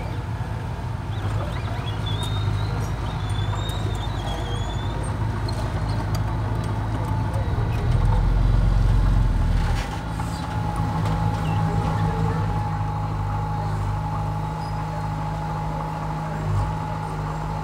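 Komatsu mini bulldozer's diesel engine running steadily while it pushes soil, getting louder about eight seconds in as it works under load.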